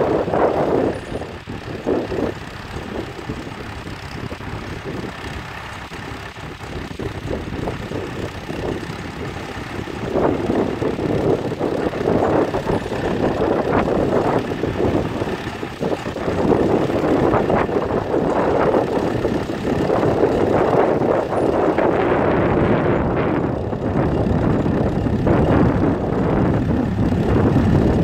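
Fordson tractor's engine running steadily under load as it pulls a plough, growing louder as it draws nearer.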